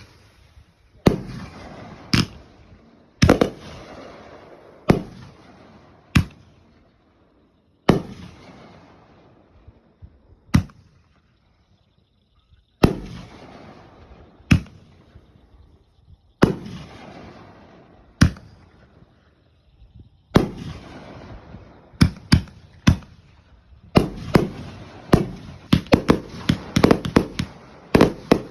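Fireworks going off: a series of sharp bangs, each followed by a long fading crackle, with a quick run of overlapping bangs near the end.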